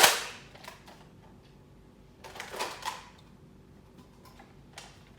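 Nerf foam-dart blaster firing once with a sharp snap at the start, then quieter plastic clicks and rattles as the blaster is primed and worked again.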